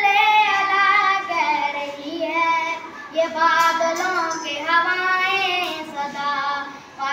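A boy singing an Urdu naat unaccompanied, in two long melodic phrases with a short breath about three seconds in.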